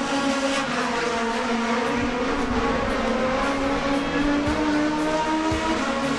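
Racing car engines running at sustained revs, their pitch drifting slowly up and down.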